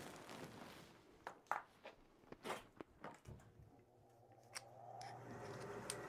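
Scattered light clicks and taps of hands working at a gas furnace's sheet-metal cabinet and filter slot, then a faint steady motor hum that builds up from about four seconds in, as the furnace starts on a call for heat.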